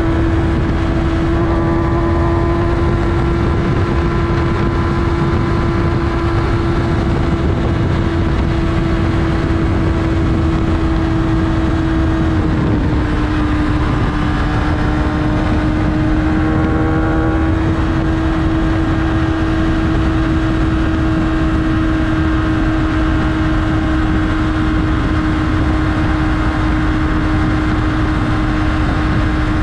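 Yamaha R6 inline-four engine running at a steady, high cruising pitch, the note briefly dipping and wavering about twelve seconds in before settling again, under a constant rush of wind and road noise.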